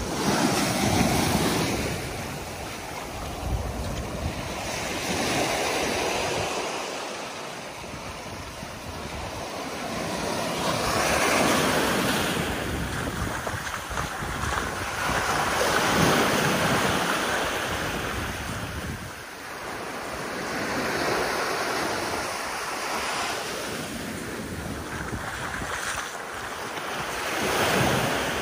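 Small waves washing up on a sandy, rocky shoreline, the surf swelling and fading every five seconds or so, with wind rumbling on the microphone.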